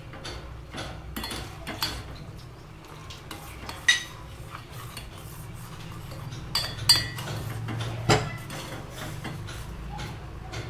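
Steel spoon stirring boiling tea in a stainless steel pot, scraping and tapping against the pot's sides with several sharp clinks, over a low steady hum.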